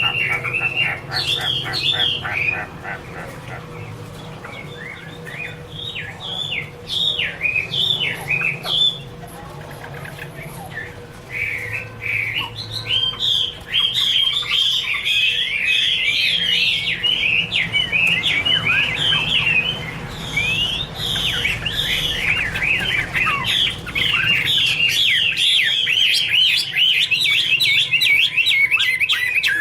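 Chinese hwamei (Garrulax canorus) singing: quick, varied whistled phrases of rapid rising and falling notes. The song comes in separate bursts at first, then runs almost without a break from about twelve seconds in, over a faint steady hum.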